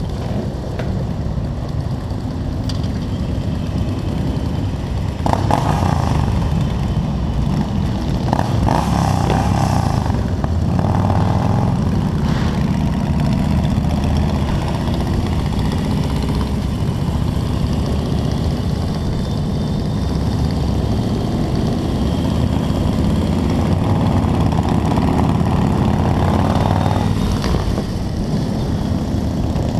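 Motorcycle engine running steadily under way, heard with wind rush on a helmet-mounted camera, among other motorcycles in a group ride. A higher engine note rises briefly a few times.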